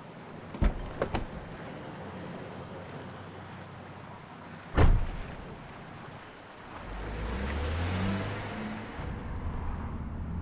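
A few light clicks, then a car door thumps shut about five seconds in. Then the car's engine revs up with a rising note as the car pulls away, with a swell of road and tyre hiss.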